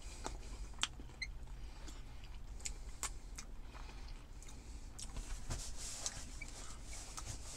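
Faint, scattered wet clicks of a man chewing a sauced chicken nugget, over a low steady hum inside a parked car.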